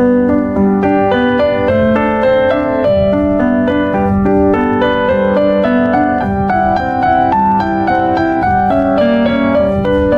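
Background music: piano playing a steady flow of notes over a sustained low bass note.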